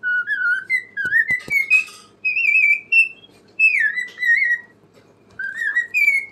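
Cockatiel whistling: a string of short, wavering whistled phrases with brief pauses between, and a few clicks about a second in.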